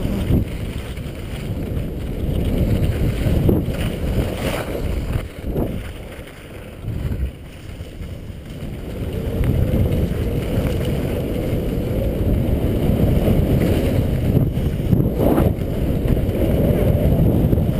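Wind buffeting the microphone of a skier's camera during a downhill run, a low rumble that eases about six seconds in and builds again from about ten seconds.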